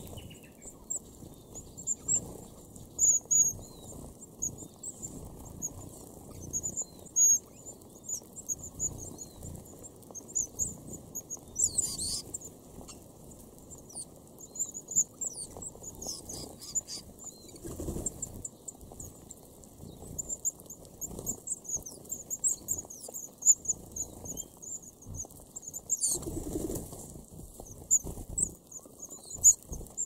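A flock of red-browed finches calling with many short, high-pitched notes over a soft patter of pecking and shuffling in seed husks. Twice, about twelve seconds in and again after twenty-six seconds, there is a brief flurry of wingbeats.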